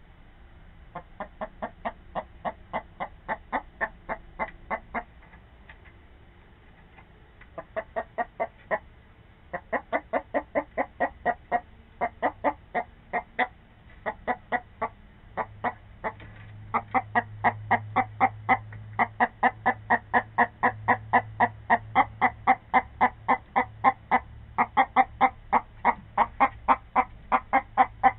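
A barred hen clucking rapidly, about three short calls a second, in several runs with brief pauses. The calls go on almost without a break through the last third.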